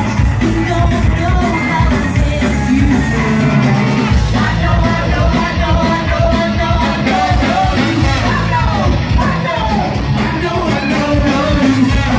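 Live ska band playing at full volume: sung vocals over electric guitar, bass and drums with a steady beat.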